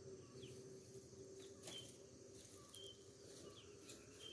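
Faint rural ambience: a bird giving short chirps about once a second over a steady high insect drone, with a faint steady low hum underneath.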